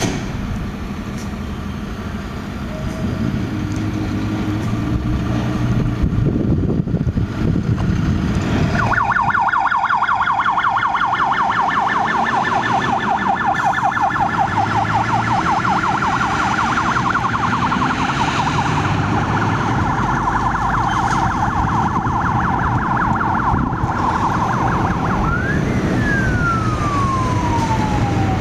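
Fire engine's diesel engine growing louder as the truck pulls out. About a third of the way in, its siren starts in a fast warble, fairly loud over the engine. Near the end the siren switches to a slow wail, sweeping up and then gliding down.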